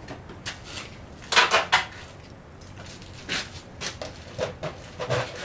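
Hand tools and small metal bolts clinking and clacking as they are handled, with a cluster of louder clacks about a second and a half in and a few lighter knocks later.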